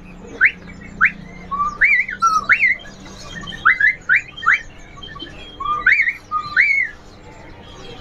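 Straw-headed bulbul (cucak rowo) singing: a run of loud, clear whistled notes that sweep sharply upward, some in quick pairs and some starting low before rising and falling, stopping about a second before the end.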